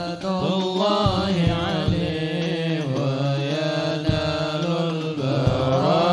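Sholawat singing: voices sing a slow, ornamented Arabic devotional melody over a low sustained drone. A few deep strokes from hadrah frame drums and bass drums fall at irregular intervals.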